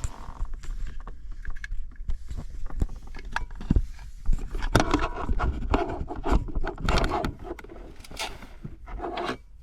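Scraping, rustling and a run of irregular clicks and knocks from hands handling small parts and cables, with a low rumble underneath.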